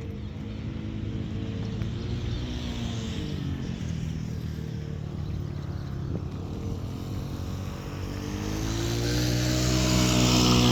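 A level-crossing warning beeps in short even pulses and stops about five seconds in. Under it a vehicle's motor hum falls in pitch, then rises and grows louder near the end.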